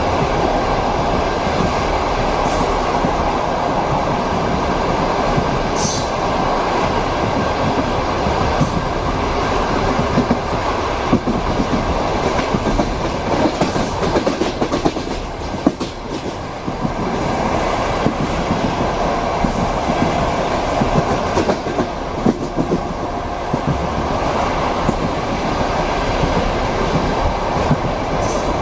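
Passenger train wheels clacking over rail joints, heard inside a compartment car, over a steady rolling rumble. Irregular louder knocks come mostly in the middle, with a few brief high squeaks.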